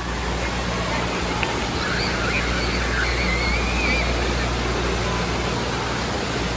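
Water pouring from a mushroom-shaped splash fountain into a shallow pool: a steady rushing splash. Faint high voices rise over it about two to four seconds in.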